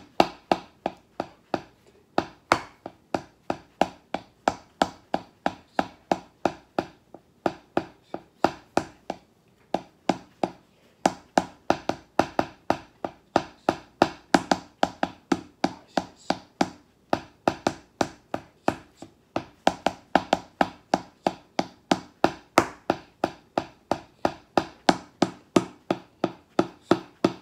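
Wooden drumsticks striking a rubber drum practice pad in a snare-drum exercise: a steady run of dry taps about three a second, louder accented strokes mixed with softer ones.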